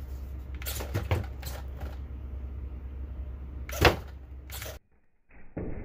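RC lowrider truck hopping on its servo-driven suspension: a steady low hum with a run of sharp knocks and clacks as the wheels and body come down on the table, the loudest about four seconds in. The sound cuts off suddenly near the end.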